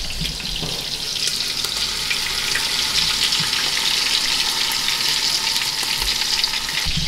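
Beef rib pieces browning in hot oil in a pot: a steady sizzle with fine crackling.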